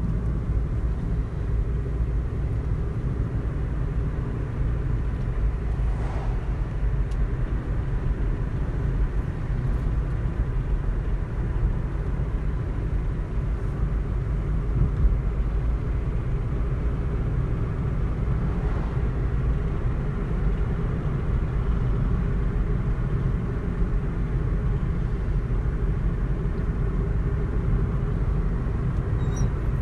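A car driving along a road, heard from inside the cabin: a steady low rumble of engine and tyre noise, with a few faint clicks.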